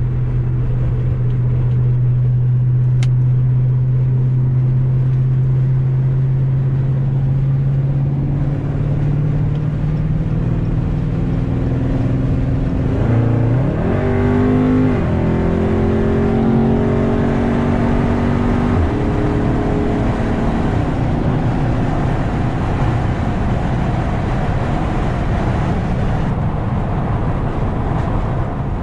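2020 Dodge Charger Scat Pack Widebody's 6.4-litre HEMI V8, tuned and with the mid muffler deleted, droning through the exhaust at a steady cruise. About halfway through the pitch climbs quickly as the car accelerates and holds there. About two-thirds of the way in it drops back and settles into a lower steady drone.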